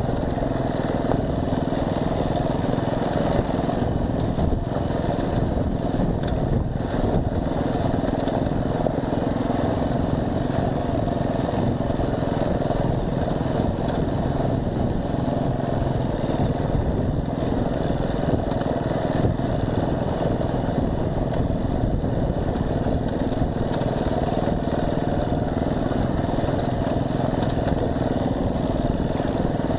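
Off-road motorcycle engine running steadily while the bike rides down a rocky dirt track.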